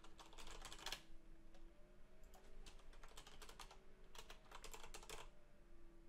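Faint typing on a computer keyboard: three short runs of rapid key clicks with pauses between them.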